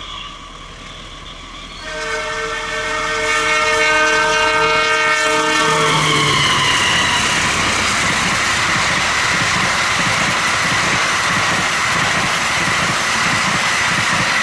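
Passenger train's horn sounding a long blast as it approaches, its pitch dropping as the locomotive passes, then the train running by at speed with a loud rush, repeated wheel clacks on the rail joints and a high steady whine.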